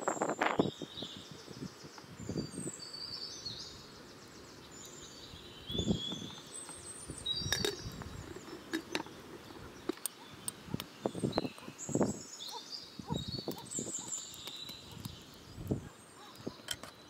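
Birds chirping, with scattered knocks and clinks of cooking gear being handled, and a wooden spoon stirring in a metal pot near the end.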